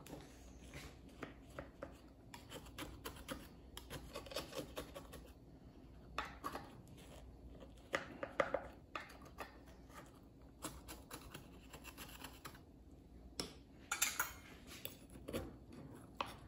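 Metal knife cutting through lemon bars and scraping and tapping against the bottom of a glass baking dish, in irregular scrapes and clicks, a few louder than the rest.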